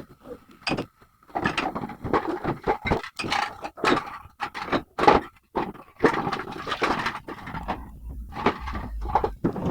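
Irregular knocks, clinks and scraping of objects being handled in a small room, coming thick and fast after the first second or so.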